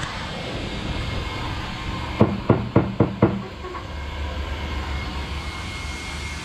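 Five quick, sharp knocks about two seconds in, about four a second, over the steady whir of an electric fan.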